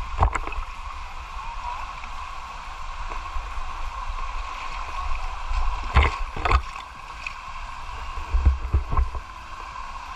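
Water splashing and sloshing as a person wades and scoops through a shallow river pool, with sharp splashes just after the start, a pair about six seconds in and a few more near nine seconds, over a steady rush of flowing water.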